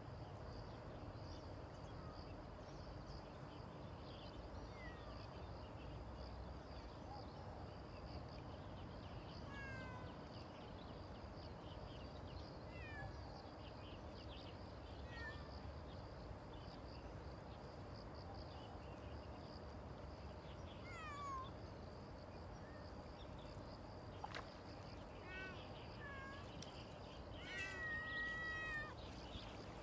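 Domestic cats meowing on and off: a series of short, falling meows, with the longest and loudest ones near the end.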